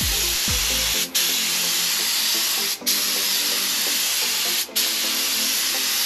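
Gravity-feed compressed-air spray gun spraying paint: a loud, steady hiss of air and atomised paint, cut off briefly three times as the trigger is released and squeezed again. Background music plays underneath.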